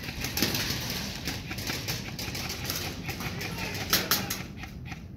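Airsoft guns firing across the field: irregular sharp clicks and pops, several a second, with one louder crack about four seconds in.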